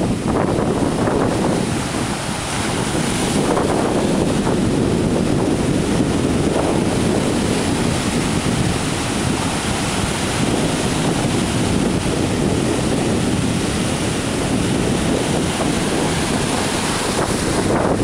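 Ocean surf breaking and washing steadily, with wind buffeting the microphone.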